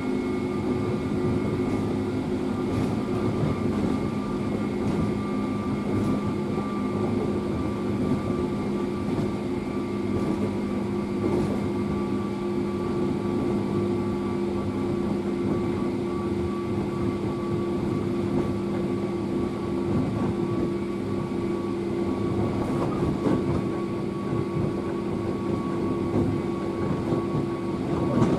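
Interior running noise of a 103 series electric train: a steady rumble from the wheels and running gear with several level, unchanging tones, as at a constant speed. A brief louder knock comes near the end.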